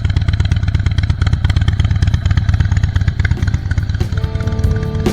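Harley-Davidson Breakout's Twin Cam 103 V-twin running steadily through a KessTech aftermarket exhaust, a fast, even pulse with no revving. Background music comes in about four seconds in.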